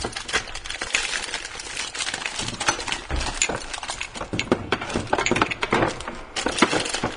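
Objects clattering and clinking as a cupboard is rummaged through: many small hard knocks and chinks in quick, irregular succession.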